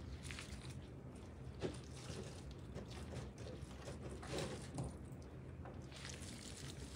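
Faint soft rustling, squishing and small clicks of gloved hands breaking up cooked trout and dropping it onto pasta in a stainless steel bowl, over a low steady hum.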